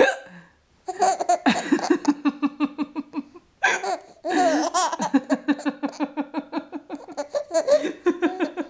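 A baby belly-laughing in long runs of quick, rhythmic chuckles, about five a second. The laughter comes in two bouts with a short pause about three and a half seconds in.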